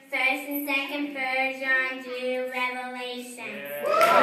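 Young girls singing together in a church, chanting a list of names to a simple tune, one syllable after another. Near the end the singing gives way to a louder, noisier burst with high voices.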